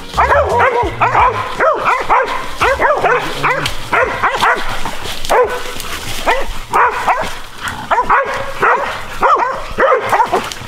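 Hog-hunting bay dogs barking continuously, about three barks a second, holding a wild sow at bay.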